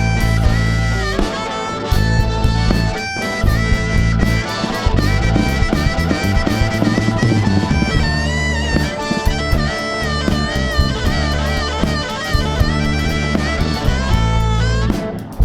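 Live blues band playing an instrumental break between verses, a lead line bending notes over electric bass and a drum kit.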